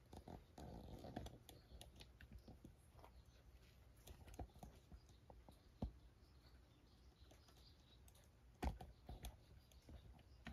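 Faint scattered clicks and ticks from a cat on a stone-tiled floor. A short patch of small crunching comes as it picks up the last dry treat crumbs. Then come light ticks as it walks off across the tiles, the sharpest about six and nine seconds in.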